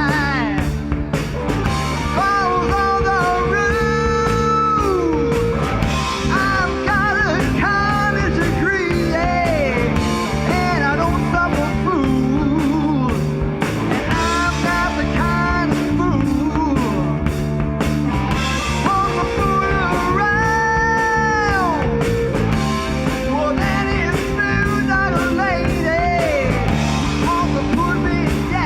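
Live rock band playing a song: a singer's voice over steady drums and guitar.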